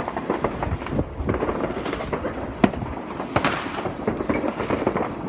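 Fireworks and firecrackers going off all around: a continuous rumble of near and distant bangs and crackles, with sharper, louder cracks about two and a half and three and a half seconds in.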